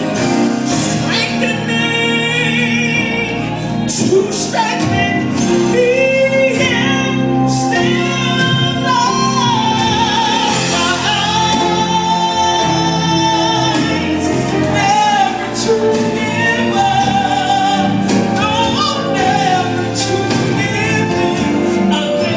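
Gospel song playing: sung melody over a steady instrumental backing.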